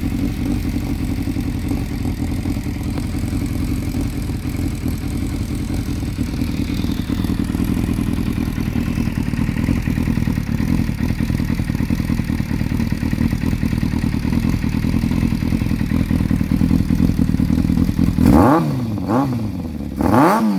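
Yamaha Fazer 600 inline-four motorcycle engine running steadily through its scrambler exhaust, then revved in three quick throttle blips near the end.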